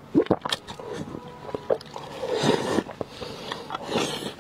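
Wet slurping and sucking as marrow is drawn out of a roasted beef marrow bone: a few sharp slurps at the start, a longer airy slurp about two seconds in and a shorter one near the end, with wet mouth clicks in between.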